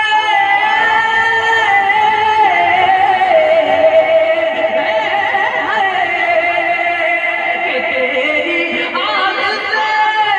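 Man singing a naat unaccompanied into a microphone, holding long, wavering notes that slide from pitch to pitch.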